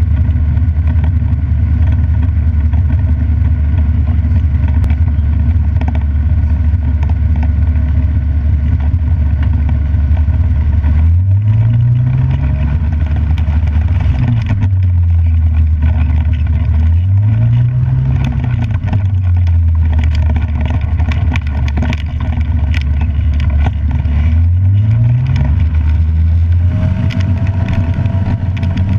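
Ikarus C22 ultralight's engine and propeller running at low power while taxiing on grass before takeoff. The engine is opened up and throttled back twice, then rises again and holds a higher speed near the end.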